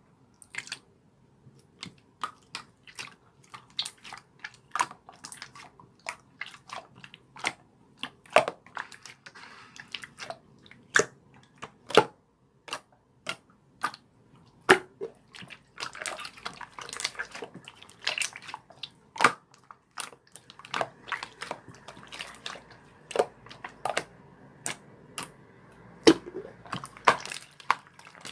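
A series of irregular sharp clicks and taps, one to three a second. A faint steady hiss joins them about halfway through.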